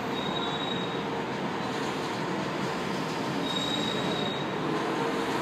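São Paulo Metro Line 1 train at the platform: steady running noise of the train with two brief high wheel squeals, one about half a second in and another near the end.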